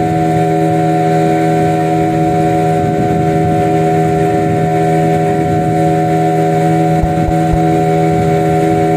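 Motorboat engine running at a steady speed, a constant droning hum with several fixed pitches.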